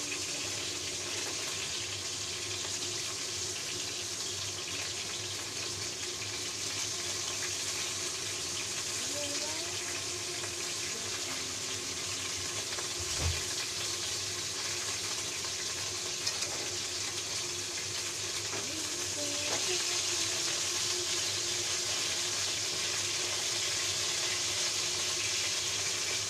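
Pieces of fish fillet frying in hot oil in a wok, a steady sizzle that grows a little louder about twenty seconds in. One brief low thump comes around the middle.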